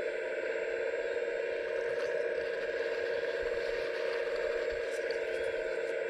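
Steady whine of a scale RC excavator's hydraulic pump running at constant speed, with a few faint clicks and rattles.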